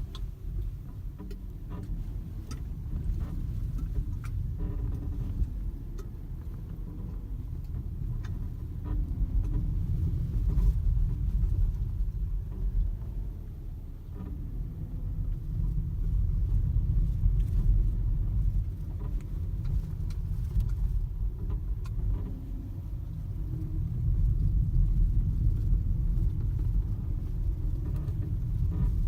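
BMW X1 F48 on the move: a low road and suspension rumble swelling and easing, with short faint squeaks and creaks here and there from the rear suspension.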